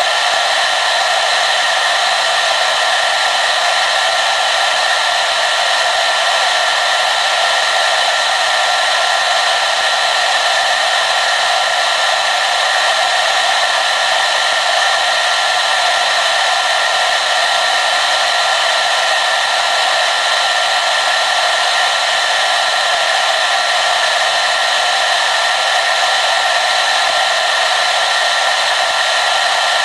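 Hair dryer running steadily: an even airy hiss with a faint steady whine from its motor and fan.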